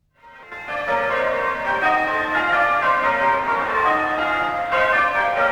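Church bells ringing changes, fading in within the first half second: a continuous run of overlapping bell strokes, one after another.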